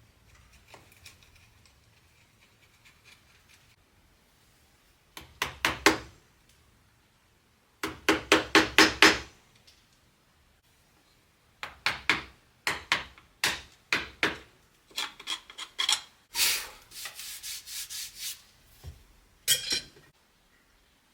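Quick back-and-forth hand strokes of an abrasive tool on wood, about five strokes a second, in several short runs with pauses between them.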